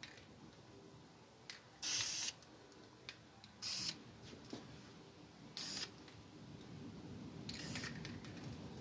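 Aerosol can of flat dark brown spray paint giving four short puffs, each a hiss of about half a second or less, roughly every two seconds. These are light, sparing bursts stencilled over leaves held against the pipe.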